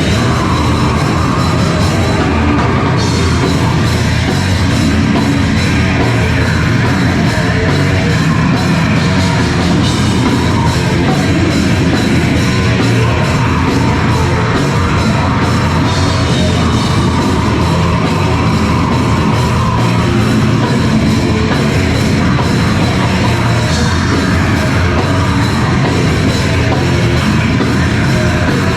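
Live heavy rock band playing loud, with a drum kit driving it and no break in the music.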